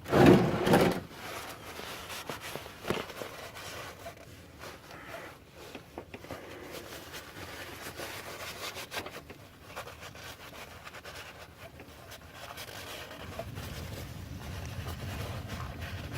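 Faint rubbing and scraping as a rag wipes the oil filter mounting surface under the car, with a few light knocks. A louder thump and shuffle comes in the first second.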